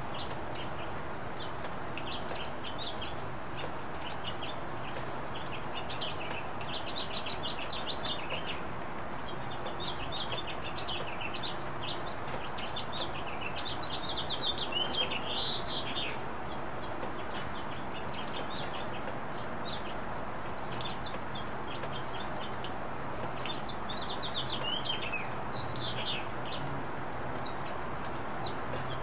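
Small birds chirping in short repeated phrases, with a few thin high calls in the second half, over a steady rain hiss and scattered drips.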